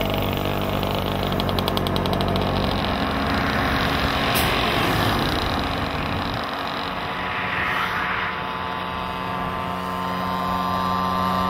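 Small two-stroke Mofa moped engine running steadily as it rides along, with a car passing about halfway through.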